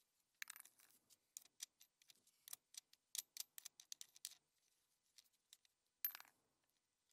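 Light metallic clicks and ticks, several a second, as wing nuts are spun off a car battery's threaded terminal studs, then a single louder clink about six seconds in.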